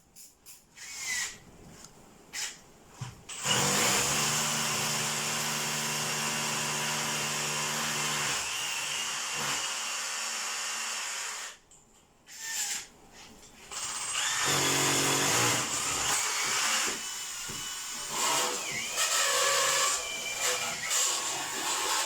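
Electric power drill running in two long steady runs of about eight and seven seconds, with a short pause between them.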